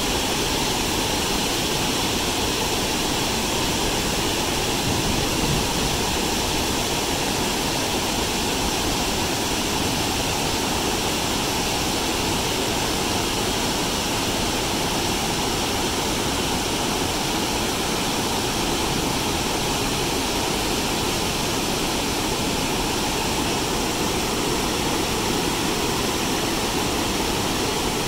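Steady, unbroken rush of a large waterfall, Kakabeka Falls, with heavy white water pouring over a wide rock ledge into a gorge.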